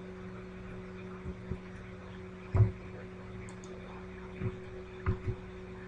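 Steady electrical hum with about six short, low thumps scattered through it, the loudest about two and a half seconds in.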